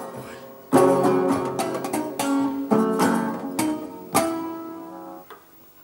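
Metal-bodied resonator guitar strummed hard in a closing run of sharp chords, the last one left to ring before it is damped about five seconds in. This is the end of the song.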